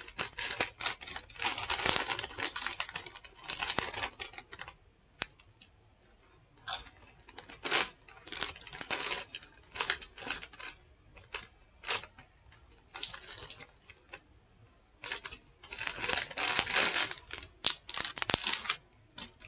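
Foil-lined Lay's potato chip bag crinkling as it is handled, in irregular bursts of crackling with short pauses between them.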